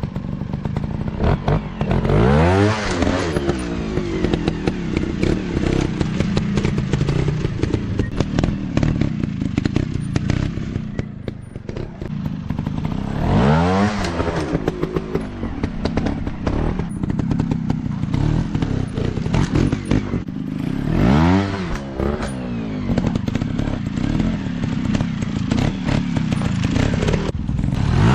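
Dirt bike engines running, revving up and falling back four times with a steady engine note in between.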